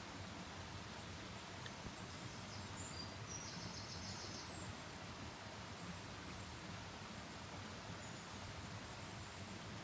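Steady outdoor background noise with faint high bird chirps, including a short rapid trill about three to four seconds in.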